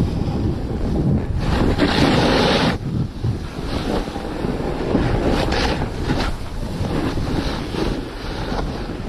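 Wind buffeting the microphone in a steady low rumble, with hissing swells of skis scraping and carving over snow. The loudest scrape comes about one and a half seconds in and lasts about a second; shorter ones follow midway.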